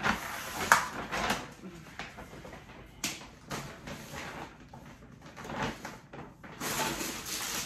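Plastic grocery packaging rustling and crinkling in uneven bursts as items are handled, with a sharp crackle about a second in.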